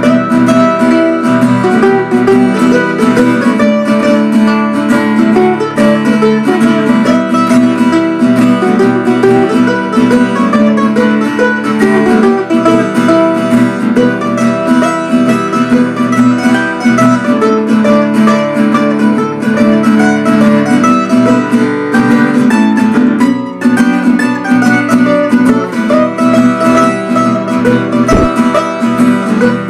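An acoustic guitar and a second plucked string instrument played together, strummed and picked in a steady tune, with a brief break about 23 seconds in.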